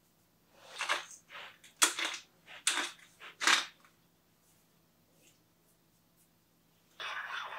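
A hand-twisted pepper grinder cracking peppercorns over a bowl of sauce: a run of about seven short, crunchy grinding bursts, then a pause. Another stretch of rustling and scraping starts near the end.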